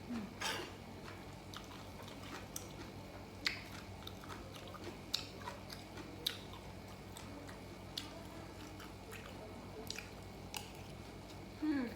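Close-miked chewing and biting of grilled pork belly, with wet mouth smacks and sharp clicks at irregular intervals. A short falling sound comes just after the start and again near the end.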